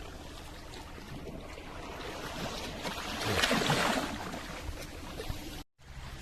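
Sea waves washing against shore rocks, a steady wash with one louder surge about three and a half seconds in. The sound cuts out abruptly near the end.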